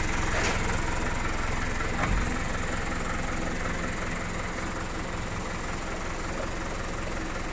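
An engine idling steadily, with a low pulsing rhythm. About two seconds in, the truck's cab door is shut with a click and a low thump.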